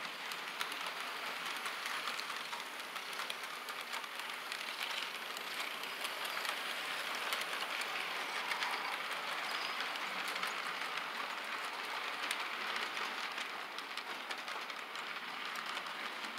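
HO scale model freight train running along the track: a steady rattling hiss of wheels on rails, with many small rapid clicks as the cars pass over the track.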